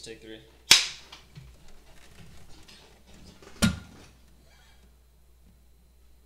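Film clapperboard snapped shut with a sharp crack about a second in, followed by a second sharp crack with a low thud about three seconds later. Faint room tone in between and after.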